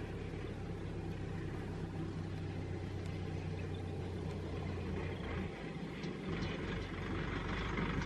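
Vehicle engine idling steadily with a low hum. The hum changes and dips about five seconds in, then carries on.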